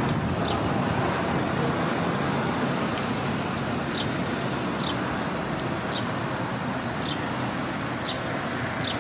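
Steady rushing engine noise that slowly fades. From about four seconds in, a short high chirp falling in pitch repeats about once a second.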